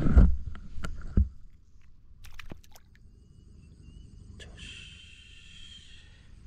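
Knocks and a splash at the start as a small fish is let go into shallow water, then the water settles. A high, chirring call runs for about a second and a half in the second half.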